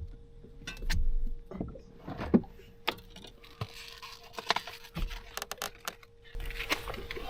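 Scattered clicks, knocks and light rattles of gear being handled in a fishing boat, over a faint steady hum.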